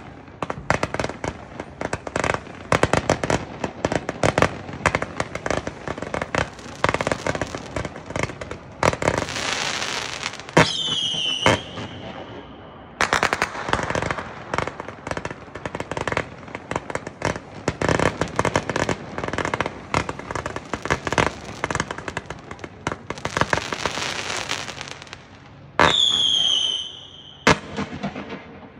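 World Class Pyro America, a 500-gram, 278-shot consumer firework cake, firing: rapid volleys of shots and crackling breaks, with stretches of hissing. Twice a whistle falls in pitch, about ten seconds in and again near the end.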